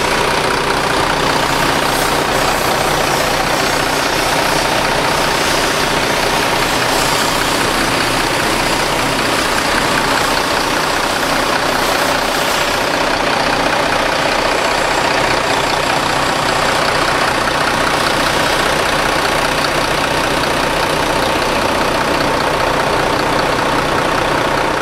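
Diesel engine of a Mercedes-Benz double-decker coach idling steadily, loud and unchanging, cutting off suddenly near the end.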